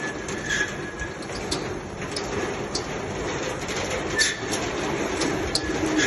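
Garage door being worked, rolling with a steady rumble and rattle, frequent small clicks and a few short squeaks.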